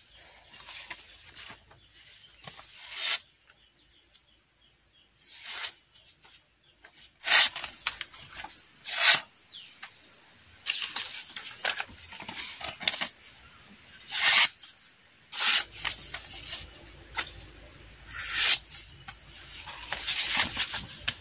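A freshly sharpened golok tebas (Indonesian chopping machete) being tried out in a series of sharp blade strokes, about ten of them spaced irregularly a second or two apart.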